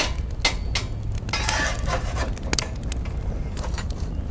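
Metal ember shovel scraping and clinking as it spreads glowing wood embers across the grill's firebox floor, with scattered sharp clicks and a longer scrape about a second and a half in, over a low steady rumble.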